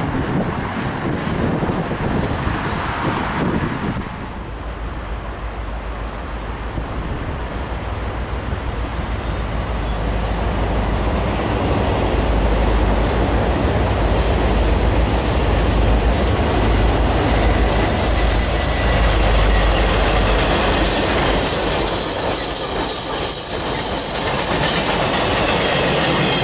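Diesel-hauled freight train passing close by: a deep engine and rail rumble builds to its loudest in the middle. It then gives way to wheels clattering and squealing on the rails as the cars roll past near the end.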